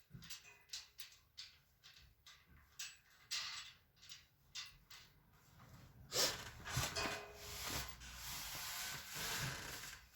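Light clicks and taps of metal parts being handled, then a louder stretch of scraping and rubbing from about six seconds in, as a caster wheel's screw is turned by hand with a socket tool into a metal shelf frame.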